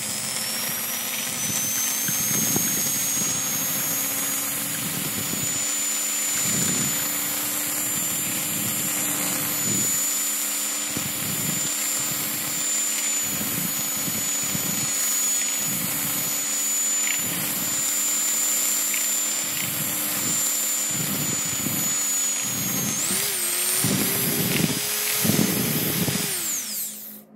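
Electric hand whisk running steadily as it beats a frothy egg batter in a glass dish, its motor whine rising in pitch near the end before it switches off.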